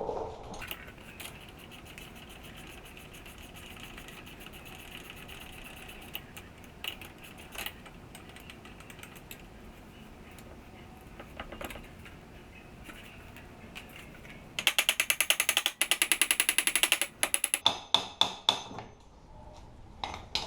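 Ratchet mechanism clicking in quick runs: faint rapid clicking over the first several seconds, then a loud, fast burst of clicks about three quarters of the way through, trailing off into a few separate clicks.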